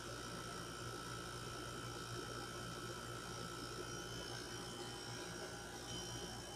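Vogga air conditioner running with a steady low hum and several thin, steady high whining tones over it: the unwanted noise the unit is making.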